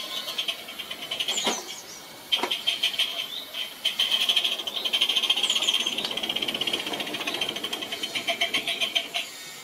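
Small live-steam garden-railway locomotive running with its train, giving a fast, rattly beat that pauses briefly about two seconds in and cuts off just before the end. A bird chirps a few times over it.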